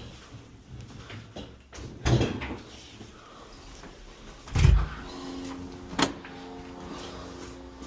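Knocks and thumps of a refrigerator's panels being handled, the loudest about four and a half seconds in, with a sharp click about a second later. A low steady hum sets in about five seconds in.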